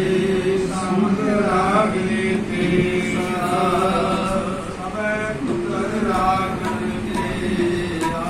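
A man's voice chanting Sikh scripture (Gurbani) through a microphone, in long held melodic notes that glide gently in pitch.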